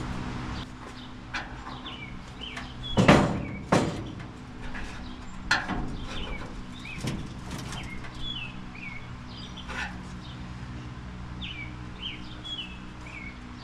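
A small bird chirps over and over in short, falling calls. A few sharp knocks and clicks from metal work on the car body come through, the loudest about three seconds in. A steady low hum runs underneath.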